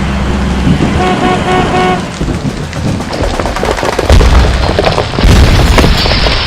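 Storm sound effects: a steady rain hiss with two deep rumbling booms past the middle, and four short beeping notes about a second in.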